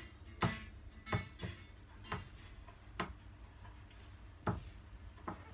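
About seven sharp knocks at irregular intervals over a faint low hum.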